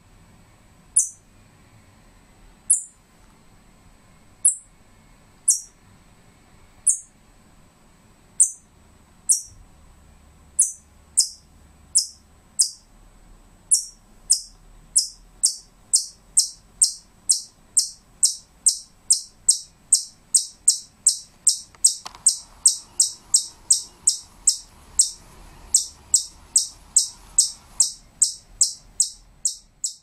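Pet squirrel giving a short, high, bird-like chirp over and over. The chirps come about one every second or so at first and quicken to about two a second past the halfway point.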